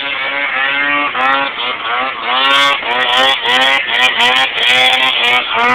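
Snowmobile engine revving hard, its pitch climbing again and again in quick rises about twice a second.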